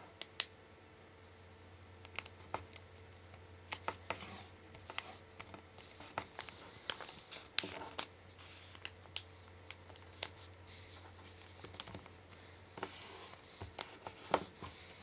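A sheet of origami paper being folded and creased by hand: soft rustles and scattered sharp little clicks as fingers press the folds flat.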